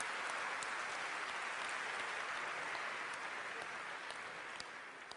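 Large audience applauding in a big hall, the clapping dying away over the last couple of seconds.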